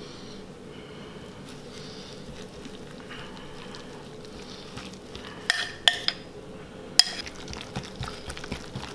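A wire whisk stirring chopped parsley into thick tahini sauce in a glass bowl: a soft, steady, wet stirring, with a few sharp clinks of the whisk against the glass about five and a half to seven seconds in and lighter ticks near the end.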